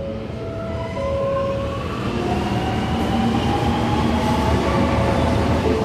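Alstom Metropolis metro train pulling out and accelerating away, its electric traction whine rising steadily in pitch over a low rumble.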